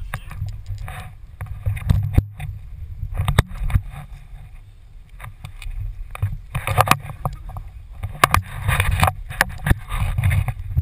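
Wind buffeting the microphone of a pole-mounted action camera in gusts, with sharp knocks and clicks from the camera pole being handled.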